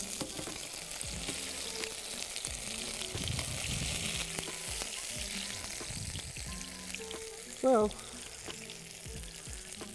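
A Crunchwrap, a folded, filled tortilla, frying in a pan to crisp and brown: a steady sizzle.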